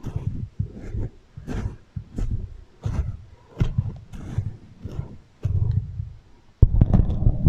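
Beeswax wrap crinkled and rubbed against a microphone, processed with an echo effect to sound like rain. It goes in rhythmic strokes, about three every two seconds, each a low thump with crackle. About six and a half seconds in, it turns denser and louder.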